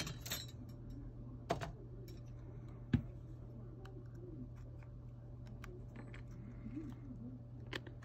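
Scattered sharp clicks and light taps of a thin metal pry tool against the edge of an iPhone 8 as it is worked under the screen, over a steady low hum.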